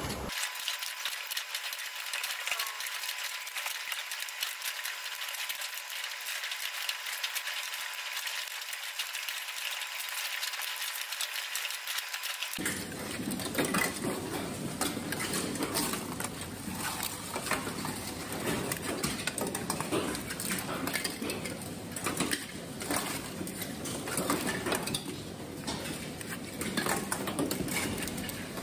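Scallops being shucked by hand over a stainless-steel table: a knife scraping and prying at the shells, and shells clinking against the steel in a quick, irregular run of clicks and scrapes. The sound turns fuller about halfway in.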